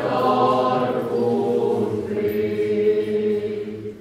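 Church choir singing an offertory hymn. From about halfway through, the voices hold one long note that fades out near the end.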